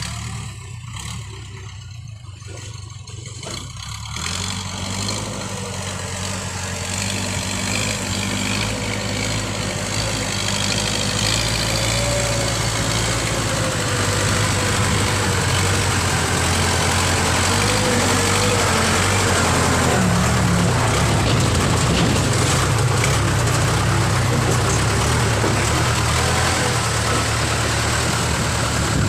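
Heavy machinery engine running. It grows louder over the first several seconds, then runs steadily and loud, with a faint wavering whine above the engine note.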